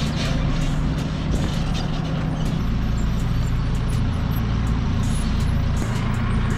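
Off-road vehicle engine running steadily at low speed, with scattered sharp clicks.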